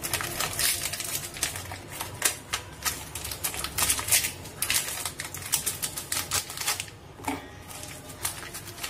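Plastic Oreo biscuit packet crinkling in a dense run of irregular crackles and clicks as the biscuits are pulled out one by one and dropped into a stainless-steel mixer-grinder jar.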